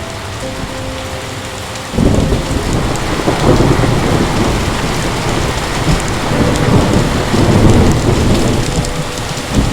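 Heavy rain pouring steadily, then about two seconds in a thunderclap breaks into a long, deep rolling rumble that swells and fades over the rain.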